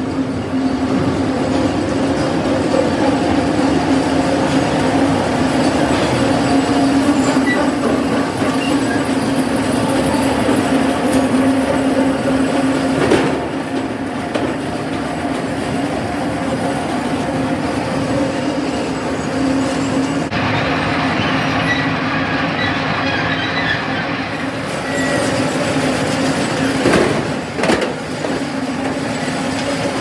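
Sawmill log debarker and its conveyor running: a steady mechanical drone with a constant hum. A sharp knock comes about 13 seconds in and another a little before the end.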